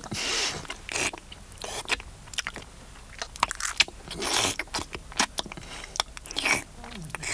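Crunchy munching sound effects of eggs being bitten open and chewed, shells cracking: a run of crisp crunches and clicks, with louder bites near the start and about four and six and a half seconds in.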